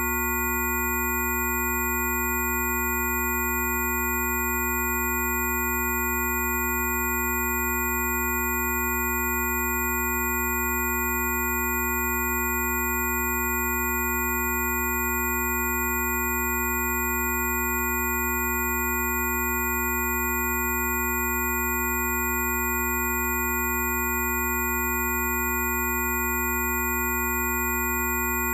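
A steady electronic drone of several pure tones sounding together over a low hum, held completely unchanged throughout.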